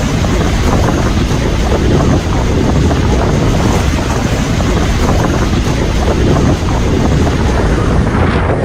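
Strong wind buffeting the microphone: a loud, steady rush of noise.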